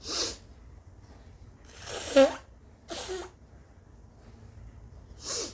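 A woman sneezing: a rising intake that breaks into a sharp, loud sneeze about two seconds in. It comes among shorter breathy bursts near the start, about a second later and near the end.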